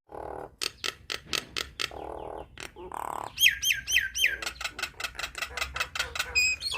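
Nias hill myna calling: a fast run of sharp clicks and short harsh rasps, then about halfway through four quick whistles that hook downward, followed by more clicking notes.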